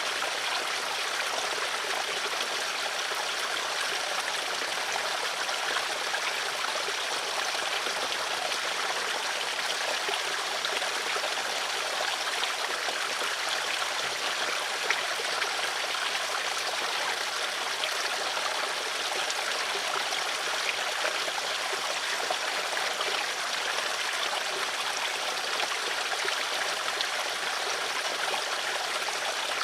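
Flowing water in a stream, running in a steady, unbroken rush.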